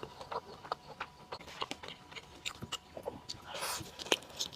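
Close-miked chewing of a burger: many short, irregular wet mouth clicks and soft crunches, with a louder bite about three and a half seconds in and a sharp click just after.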